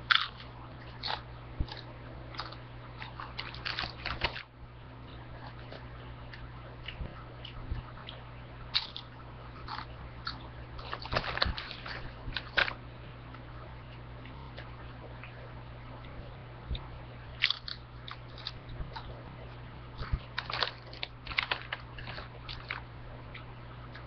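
Chips being crunched and chewed close to the microphone, in three bouts of crisp crackles with short pauses between them.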